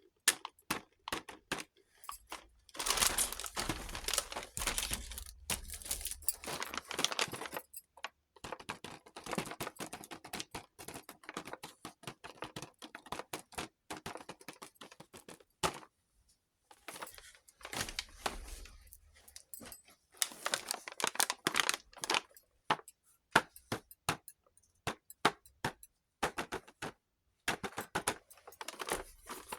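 Small plastic toy kitchen pieces being handled: a run of quick clicks and taps, broken by several stretches of denser rustling, the longest a few seconds in.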